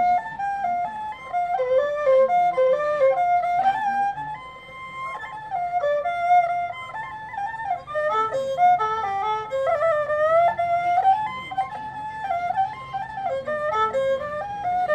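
Tro Khmer, the Cambodian bowed spike fiddle, playing a solo melody of short ornamented notes that slide between pitches.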